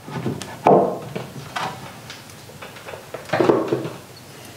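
Knocks and clunks of a metal pipe bracket being handled and set against an OSB wall panel: a sharp knock just under a second in, a lighter one a little later, and a longer clattering knock about three and a half seconds in.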